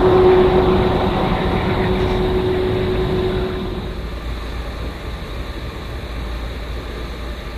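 Distant freight train with diesel locomotives running, a steady rumble with a steady hum over it. The hum fades out about four seconds in and a quieter rumble goes on.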